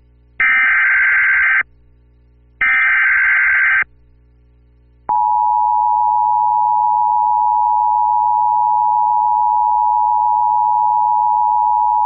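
Emergency Alert System SAME header: two bursts of warbling digital data tones about a second long each, near the start. About five seconds in, the steady two-tone EAS attention signal begins. Together they mark the start of a broadcast emergency alert, here for a severe thunderstorm warning.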